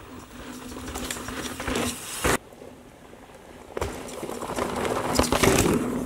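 Orbea Oiz OMX mountain bike ridden toward and past the camera on dirt trails twice: tyres rolling over dirt and roots and a freehub ratchet ticking, growing louder as the bike nears, with sharp knocks as it passes.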